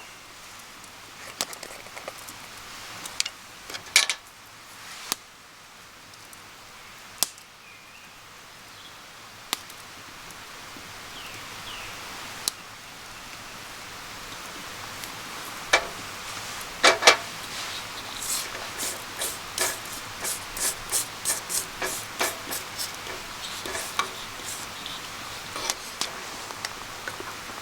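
Scattered sharp knocks and clicks, turning in the last third into a run of quick taps about two a second.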